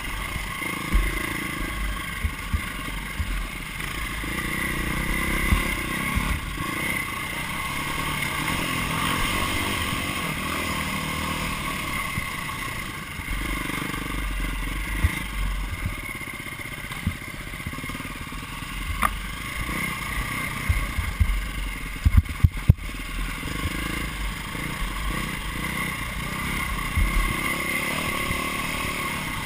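Dirt bike engine running at speed under load on a rough trail, with low rumble and knocks from the bike hitting bumps, and a cluster of sharp knocks about three-quarters of the way through.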